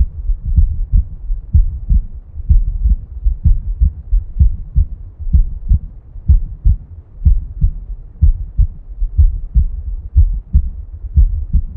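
Heartbeat heard as a regular rhythm of low, paired lub-dub thumps, the heart pumping blood.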